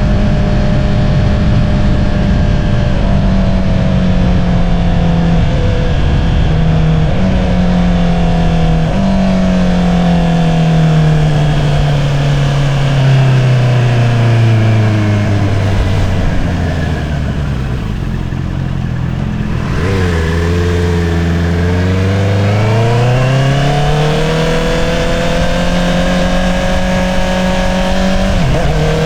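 2022 Honda CBR650R's inline-four through an Akrapovič single-outlet exhaust, riding at a steady pitch. Then the revs fall away over several seconds as the bike slows, hold low for a few seconds, and climb again as it accelerates, with a quick dip in pitch near the end as it changes gear.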